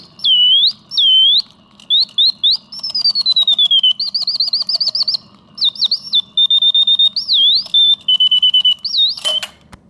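Antique singing bird automaton's mechanical whistle singing its song: swooping glides, a long falling note, fast warbling trills and held whistled notes. The song stops with a sharp click near the end.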